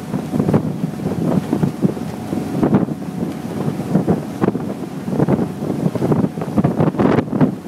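Wind buffeting the microphone in uneven gusts on the open deck of a passenger ferry under way, over the rush of its churning wake.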